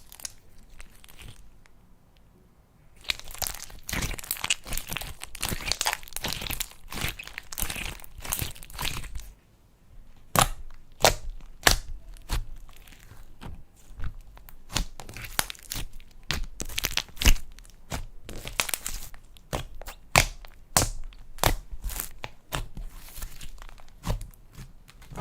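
Slime being squished and stretched by hand, with sticky crackling for several seconds and then a long run of sharp pops and clicks.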